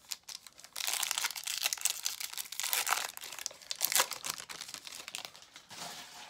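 Wrapper of a pack of baseball cards crinkling and tearing as it is opened: a dense crackle that starts about a second in and trails off near the end.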